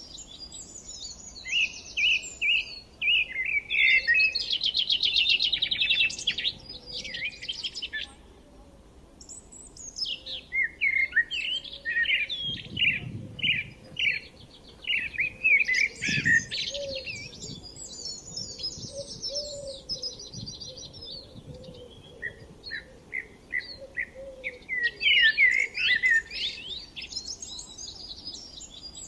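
Several birds singing and chirping together: fast trills, runs of quick repeated chirps and overlapping song phrases, with a short lull about eight seconds in.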